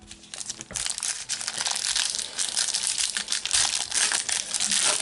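Foil trading-card booster packet crinkling and crackling as it is handled and opened, a dense run of sharp crinkles lasting nearly the whole time.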